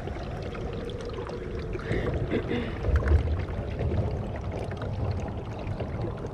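Kayak being paddled up a small creek: water splashing and trickling off the paddle, with a low rumble under it and a louder stretch of strokes from about two to four seconds in.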